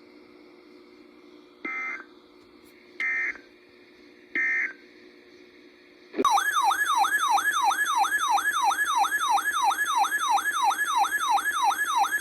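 Three short data bursts of EAS end-of-message tones, evenly spaced about a second and a half apart. About six seconds in, a loud warbling alert tone starts, sweeping up and down about four times a second like a siren yelp.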